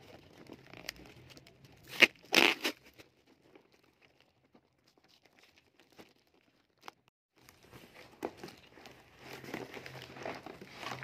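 Packing tape and cardboard being torn open on a parcel box, with loud ripping strokes about two seconds in. After a few near-silent seconds, cardboard flaps rustle and crinkle as the box is opened.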